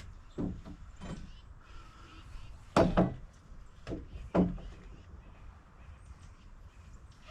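A string of hard wooden knocks and clunks, the loudest a double knock about three seconds in, as deck boards are worked loose and handled.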